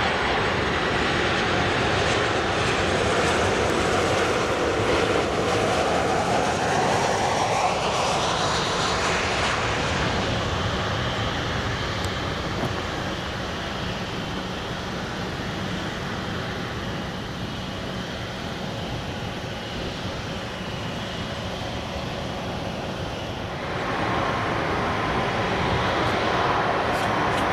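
Jet airliner engines passing overhead: a steady roar, loudest over the first ten seconds, with a sweeping tone that falls and then rises as the plane goes by. The roar then eases. Near the end, jet engine noise builds again with a steady whine.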